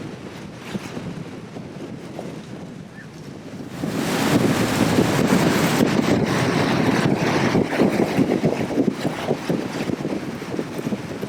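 Strong storm wind buffeting the microphone over the rush of heavy surf, rising into a louder, sustained gust about four seconds in.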